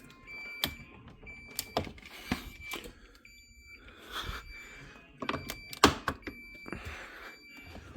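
Repeated short electronic beeps at one steady pitch, mixed with plastic clicks and knocks as the frozen ice maker assembly is worked loose from the refrigerator's ice compartment, with a sharp knock a little before six seconds in.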